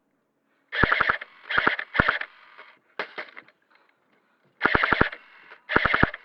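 An airsoft gun firing six short bursts of a few rapid shots each, with brief pauses between bursts.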